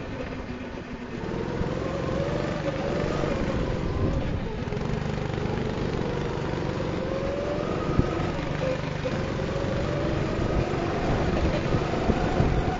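Go-kart engine heard from onboard, its pitch rising and falling as the kart accelerates and lifts through the corners. A single sharp knock about eight seconds in.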